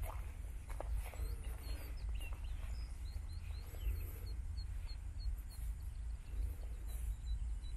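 Wind rumbling on the microphone, with a bird's short high chirps repeated about three times a second from about three seconds in.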